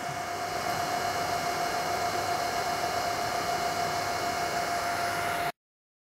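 Rackmount server's cooling fans running steadily: an even whooshing hiss with a single steady whine over it. It cuts off suddenly about five and a half seconds in.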